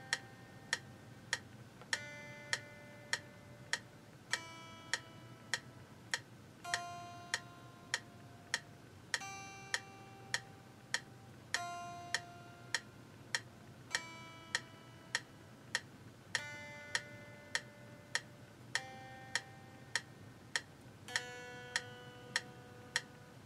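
Metronome clicking steadily, about 1.7 clicks a second, while single notes are picked slowly on an electric guitar, a Squier Stratocaster. A new note comes in on every fourth click and rings until the next one.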